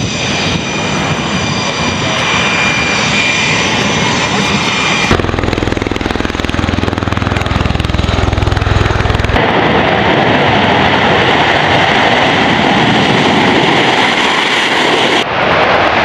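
Jet engines of Blue Angels F/A-18 Super Hornets on a formation takeoff roll: a loud roar with a steady high whine over it. About five seconds in it cuts to the deep rotor beat of a V-22 Osprey's proprotors in flight, followed by another steady loud aircraft roar.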